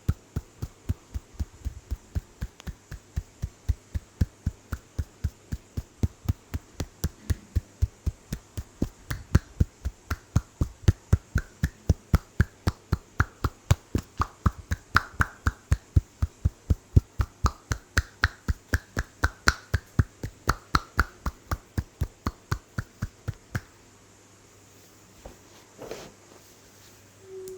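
Rhythmic percussive tapping of a head massage, about three sharp taps a second, stopping about 24 seconds in. A single knock follows a couple of seconds later.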